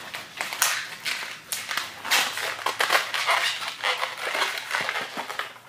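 Latex modelling balloons rubbing and squeaking against each other as they are twisted and tied together by hand, in irregular scratchy strokes.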